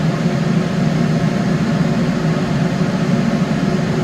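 Steady low mechanical hum of a running fan or appliance motor, unchanging throughout.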